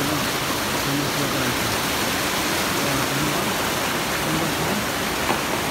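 Mountain river rapids rushing steadily over boulders: a loud, even roar of white water.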